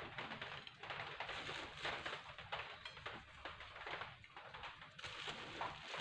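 Faint rustling and light pattering as chopped coriander and parsley are sprinkled by hand onto diced boiled potatoes, over a low steady hum.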